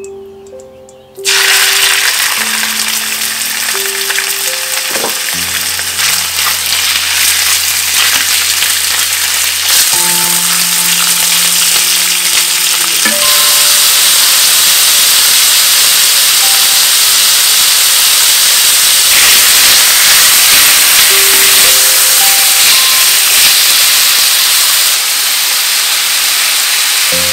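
Chunks of raw turkey fillet frying in hot oil in a frying pan: a loud, steady sizzle that starts suddenly about a second in.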